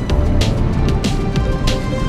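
Background music with a steady beat: held synth-like tones over percussion striking about every two-thirds of a second.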